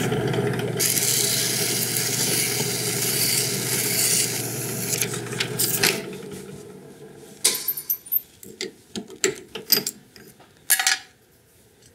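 Drill press running at about 1,000 RPM with 220-grit sandpaper held against the end of a spinning wood-infilled copper tube plug: a steady sanding hiss over the motor hum. About six seconds in, the sanding and the hum stop, followed by scattered light clicks and taps as the plug is handled.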